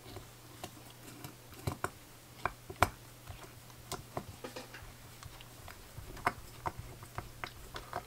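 Scattered light clicks and taps of small screws and plastic spacers being handled and fitted as a circuit board is screwed down onto an aluminium plate, over a faint steady low hum.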